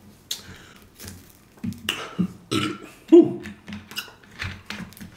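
A man burping after a big meal: several short throaty burps, the loudest about three seconds in.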